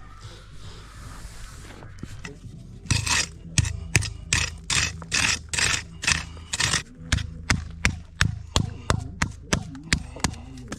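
Stiff broom being dragged across fresh wet concrete to give it a broom finish: a quick series of short scratchy strokes, about three a second, starting about three seconds in, over a steady low hum.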